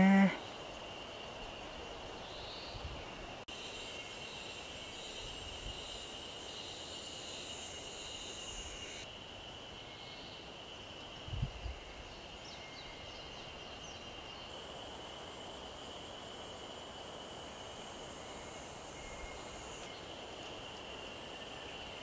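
Summer outdoor ambience with a steady high insect drone, and one soft low thump about eleven seconds in.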